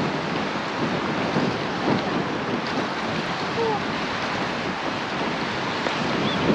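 Strong gusting wind and wind-driven waves on a lake, a steady rushing noise with the wind buffeting the microphone.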